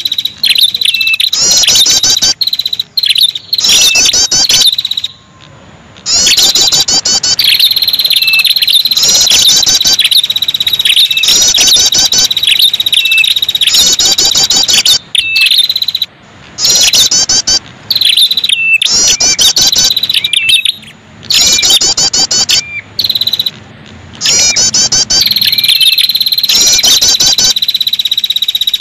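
Bird-lure recording of the prenjak kepala merah, a small songbird, giving fast, high chattering trills in repeated phrases over a steady high-pitched tone. The track cuts off abruptly and restarts several times, leaving short gaps.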